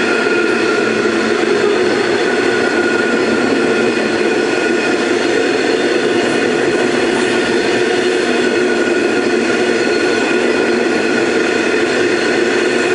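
Iron ore wagons rolling past at close range: a steady, even noise of steel wheels running on the rails, with a few steady high ringing tones held through it.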